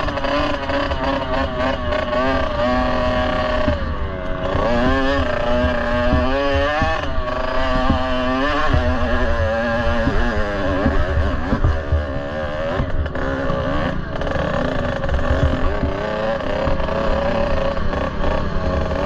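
Kawasaki KX65 dirt bike's two-stroke single-cylinder engine being ridden, its pitch rising and falling again and again with the throttle.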